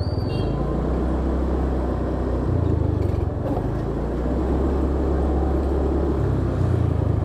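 Motorcycle engine running at low speed under wind noise on the microphone, swelling briefly about two and a half seconds in and again near the end.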